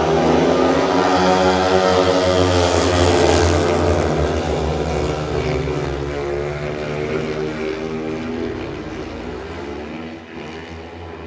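A pack of four speedway motorcycles' single-cylinder engines running hard through a bend, their pitch rising and falling with the throttle. The engines are loudest in the first few seconds, then fade steadily as the bikes pull away down the far straight.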